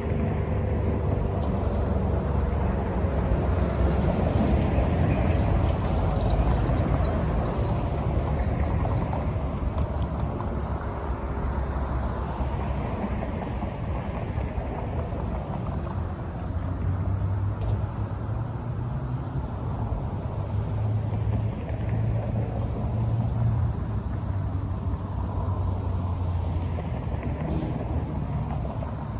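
ACA Allertor 125 rotating tornado siren winding down, its falling tone fading out over the first few seconds. A steady low rumble and hiss carry on after it.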